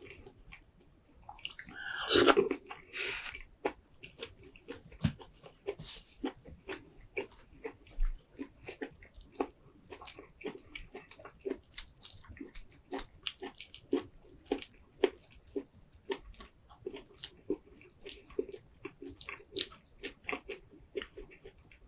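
Close-miked chewing and biting while eating a seafood boil: wet mouth sounds and many sharp smacks and clicks, with one loud crackling burst about two seconds in.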